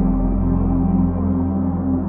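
Ambient background music: sustained, drone-like low tones with no beat.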